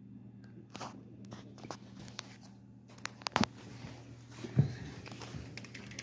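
Handling noise of a phone being carried through a house and out a door: light rustles and knocks, a few sharp clicks about three seconds in and a louder thump about a second later, over a steady low hum.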